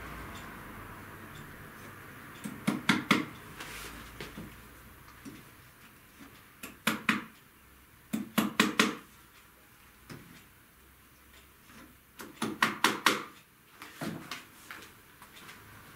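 Upholsterer's tack hammer (ramponneau) tapping upholstery tacks through burlap into the sofa frame, in short runs of several quick light strikes, about four runs a few seconds apart.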